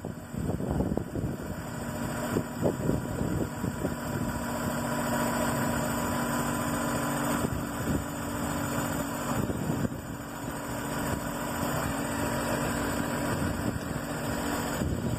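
Tractor engine running at idle, a steady hum, with wind buffeting the microphone.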